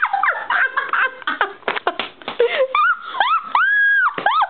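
A young woman laughing in short bursts, with a long high-pitched squeal near the end.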